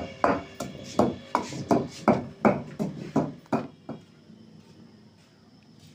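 Long wooden pestle pounding black pepper, mint and coriander leaves in a large stone mortar, about three strokes a second, stopping a little past halfway.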